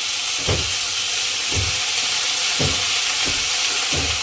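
Onions and roselle leaves sizzling in hot oil in a pan, with a spatula knocking against the pan about five times as they are stirred.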